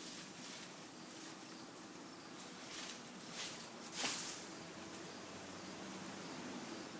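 Insects such as crickets or cicadas buzzing steadily outdoors, with a few short rustling swishes, the loudest about four seconds in.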